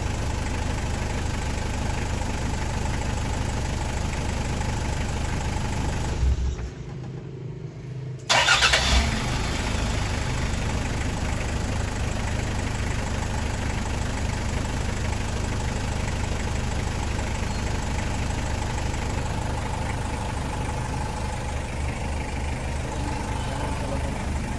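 Toyota 1KZ 3.0-litre four-cylinder turbo-diesel idling with an even, steady beat. About six seconds in it is switched off, and about two seconds later it is cranked and fires up again, settling back to a steady idle.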